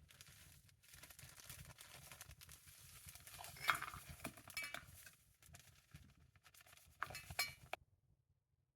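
Faint clinking and scraping of a spoon stirring hot chocolate in cookware. There is a sharper clink about three and a half seconds in and a few more near the end, then the sound cuts off suddenly.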